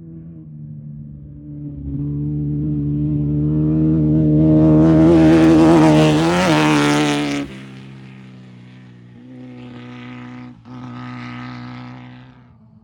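Off-road race vehicle's engine at high, steady revs as it comes up and passes at speed. It is loudest about halfway, with a rush of tyre and exhaust noise over it, and cuts off suddenly. A quieter engine follows, with a brief break in it.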